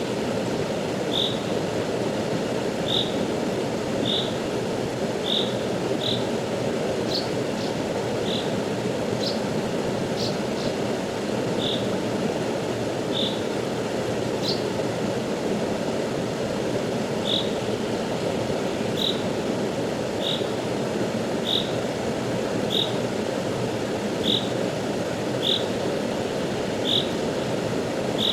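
Steady rush of a river flowing, with a short high chirp from a small animal repeating about once every second or so, and a few higher chirps in the middle.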